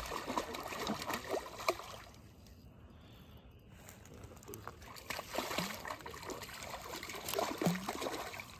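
A hooked trout splashing at the river surface as it is reeled in, in a run of short splashes, with a lull a couple of seconds in before the splashing picks up again.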